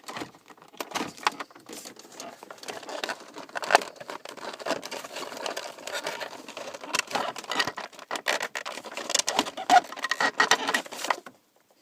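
Irregular plastic clicking and rattling as wiring connectors are unplugged from the back of a Volvo climate control unit, with handling noise of the loose unit. The clicks stop shortly before the end.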